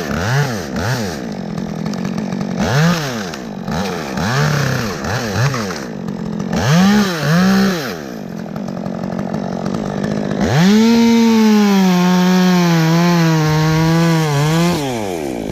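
Two-stroke chainsaw revved in short, repeated blips for the first half, then held at full throttle in a steady cut for about four seconds from about ten seconds in, the pitch dipping slightly under load before it drops back to idle near the end.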